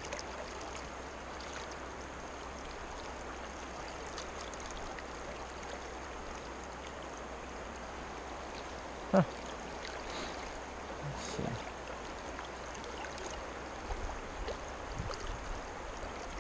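Steady rush of a flowing creek's water, with one brief sharp sound about nine seconds in.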